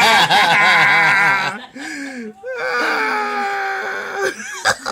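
A loud voice wailing without words: a warbling, wavering cry, then after a short break one long drawn-out wail that slowly falls in pitch.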